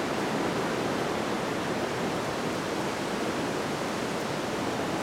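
Steady, even rushing background noise with no breaks or strokes, the outdoor ambience heard during a silent pause in speech.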